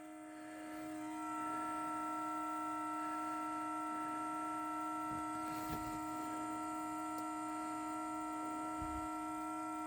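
A steady hum of several even tones from a car whose engine is off, swelling over the first second and then holding level. It only happens in freezing cold, and the owner has been told it has something to do with the exhaust.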